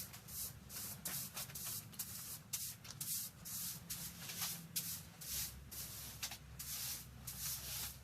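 Spilled engine oil being wiped up off the floor: repeated rubbing swishes about two to three a second, over a steady low hum.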